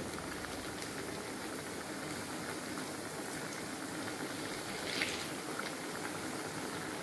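Samosas deep-frying in hot oil in a kadai: steady sizzling and crackling of bubbling oil, with a brief louder burst of sizzling about five seconds in.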